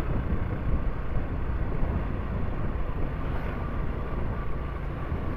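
Motorcycle riding at a steady pace: a continuous engine and road drone mixed with wind noise on the microphone.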